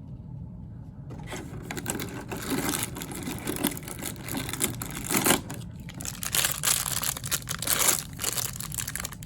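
Small purple plastic blind bag crinkling and tearing as it is opened by hand to get the figure out, with a dense run of crackles starting about a second in.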